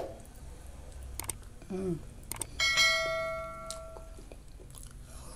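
Bell-like 'ding' chime of a subscribe-button animation sound effect, ringing about two and a half seconds in and dying away over about a second and a half, with a few sharp clicks before it.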